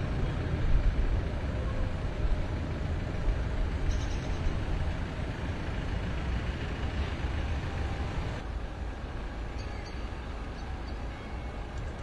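Steady low rumble of vehicle engines as a minibus and a car drive slowly along the road, with the higher hiss dropping away about eight seconds in.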